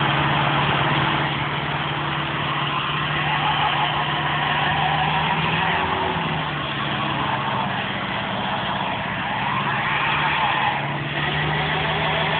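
Box lorry's diesel engine labouring steadily under throttle while its drive wheels spin on snow, an engine drone with a hiss of wheelspin over it; the lorry is stuck, unable to get up the snowy slope. The pitch rises and falls a little near the end.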